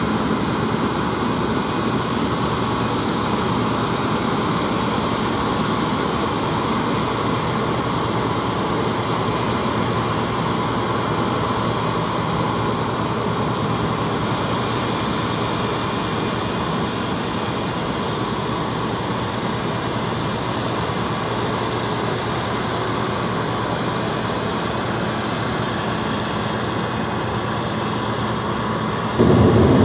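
New Holland CX720 combine harvester's diesel engine and threshing machinery running steadily while harvesting wheat, an even mechanical drone. Near the end it cuts to a louder, deeper rumble heard from inside the combine's cab.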